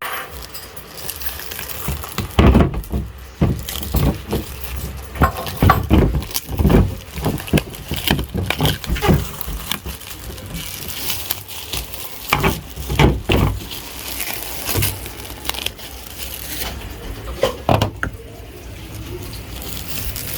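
Irregular knocks, clatters and handling noises, some sharp, over a steady background hiss.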